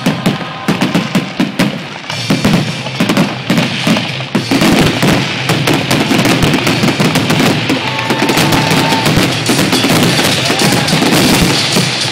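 Fireworks display: rapid, overlapping bangs and crackling from aerial shells, which thicken into a near-continuous barrage about four and a half seconds in.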